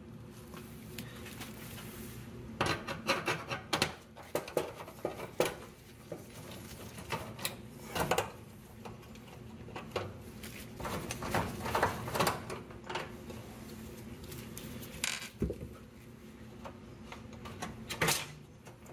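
Irregular clicks, taps and rattles of hard plastic and sheet metal being handled, as hands work at an electric range's control board and its wiring connectors before swapping the board.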